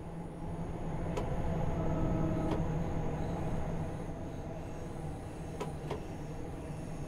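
Class 314 electric multiple unit running: a steady low rumble with faint whining tones over it and a few sharp clicks, a little louder about two seconds in.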